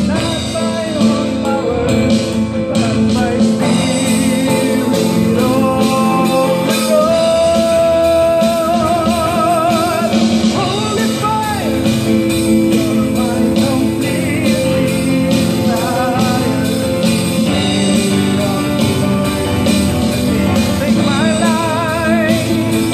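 A small live band: a man singing into a microphone, holding several long notes with vibrato, over a strummed acoustic guitar and a Roland Juno keyboard.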